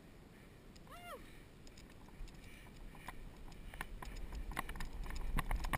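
Mountain bike rolling along a rough dirt trail: irregular clicks and rattles of the bike over the bumps, with a low wind rumble, both growing louder from about two seconds in. A single short high-pitched call sounds about a second in.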